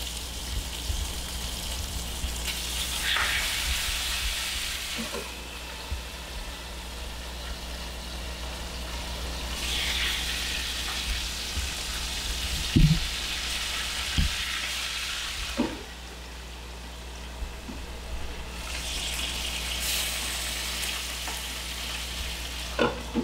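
Food frying in a pan on a gas stove: a steady sizzling hiss that swells and eases about three times, with a few light knocks.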